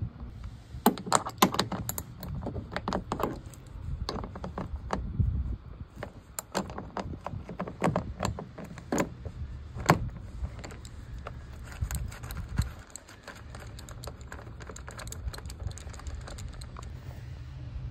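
Irregular light clicks, knocks and small metallic clinks, in clusters, from hands working loose the bolts of a Tesla Model Y's plastic frunk trim panel, over a steady low rumble.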